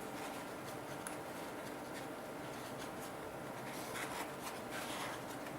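Faint rubbing of a rag wiping out the parts of a propane fuel lock-off valve, with a few light scrapes about four seconds in.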